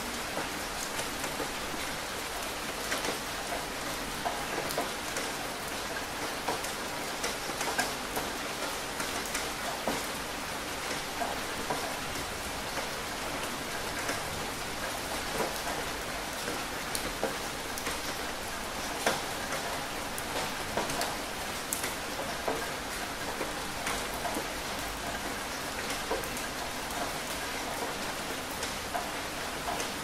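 Steady rain falling: a dense, even hiss with many individual drops hitting close by.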